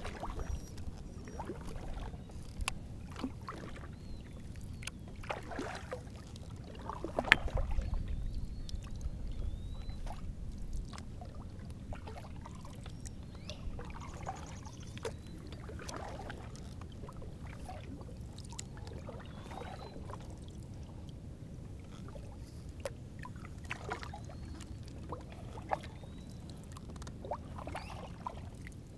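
Paddle strokes in lake water, a swish and splash every two to three seconds, the strongest about seven seconds in, over a steady low rumble.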